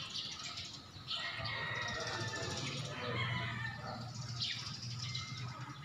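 Birds chirping, with a low steady hum and a hiss that come up about a second in and fade over the next few seconds.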